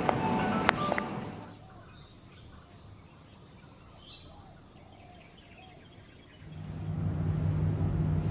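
Faint bird chirps in a quiet outdoor ambience. They sit between a louder passage with two sharp clicks that fades out in the first second and a half and a low, steady hum that comes in about six and a half seconds in.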